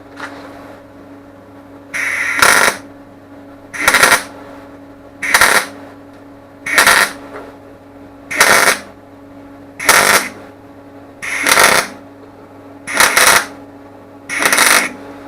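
An electric welder laying a row of short welds on the tractor door's sheet steel, nine crackling bursts of about half a second each, roughly one and a half seconds apart. A steady low hum runs underneath.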